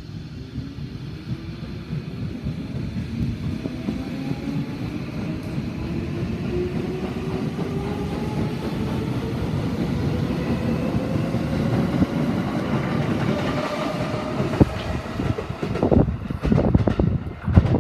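Tokyo Metro 13000-series electric train pulling away from a station: its traction motors give a whine of several tones that rises steadily in pitch as it accelerates, over a growing rail rumble. Near the end, quick wheel clacks sound as the cars pass.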